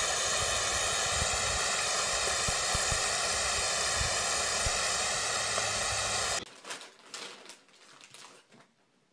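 Steady loud hiss of a water spray with scattered low knocks under it. It cuts off suddenly about six seconds in, leaving only faint taps and rustling.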